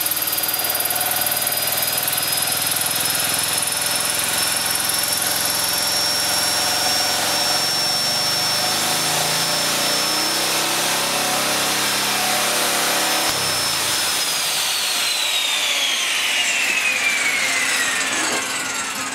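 Handheld electric power tool run as the load on a small petrol generator set, its motor whining steadily over the running engine. About fourteen seconds in the whine falls steadily in pitch as the tool is switched off and spins down.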